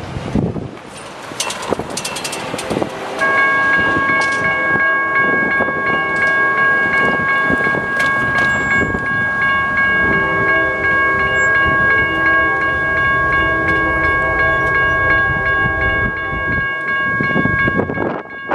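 Railroad grade-crossing warning bell starting about three seconds in as the crossing activates for an approaching train. It rings on steadily and stops near the end, once the gate arms are down.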